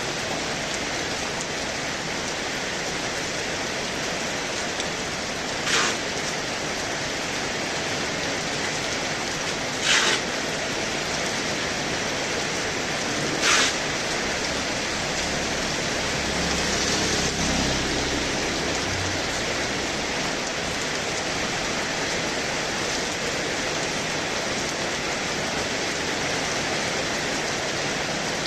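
Heavy rain pouring steadily, with three short, louder swishes and a low rumble that swells briefly a little past the middle.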